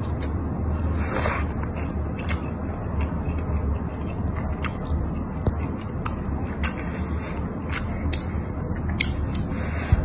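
A person slurping and chewing thick noodles in spicy broth: wet mouth clicks and smacks over a steady low hum, with a louder slurp about a second in.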